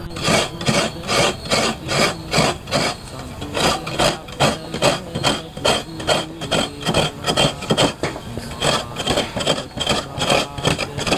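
Coconut being grated on a hand scraper: a run of rhythmic rasping strokes, about two or three a second.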